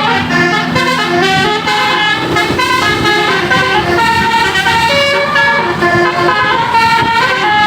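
Bus basuri telolet horn, a set of air trumpets playing a tune: several tones sound together and step to new notes every quarter to half second.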